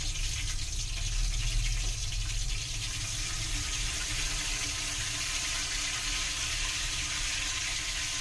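Batter-coated apple rings deep-frying in hot oil in an aluminium kadai: a steady sizzling hiss of bubbling oil over a low rumble, a little louder about a second in.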